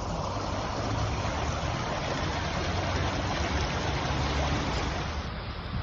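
Steady rushing floodwater, a dense hiss-like roar with a deep rumble underneath.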